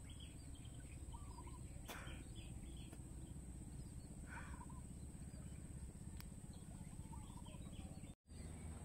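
Small birds chirping in short, repeated calls over a steady low outdoor rumble, with a steady high-pitched tone in the background. Two brief noisy rushes about two and four and a half seconds in, and the sound cuts out for a moment near the end.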